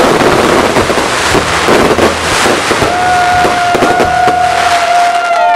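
Fireworks finale: gold aerial bursts and crackling stars going off in a loud, dense barrage of bangs and rapid crackles. A long held tone joins about three seconds in and slides down at the end.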